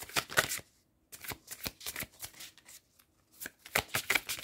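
A deck of angel-number oracle cards being shuffled by hand: runs of quick card slaps and flicks with two short pauses, getting faster and denser near the end.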